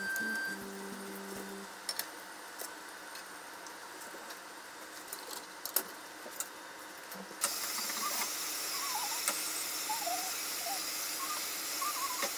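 Hot frying oil sizzling in a frying pan, with a few sharp clicks of a utensil against the pan. About seven seconds in, a louder, higher hiss starts and runs on, with faint wavering high tones over it.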